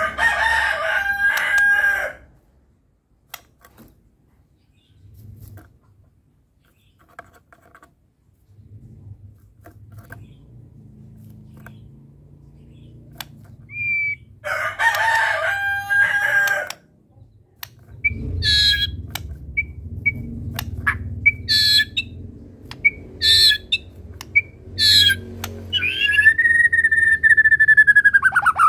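Birdsong: two crowing calls about two seconds long, at the start and about fifteen seconds in, then a run of sharp whistled notes and chips from about halfway, ending in a long down-slurred whistle. This is typical of a white-rumped shama (murai batu) singing with mimicked phrases. A low hum runs under the second half.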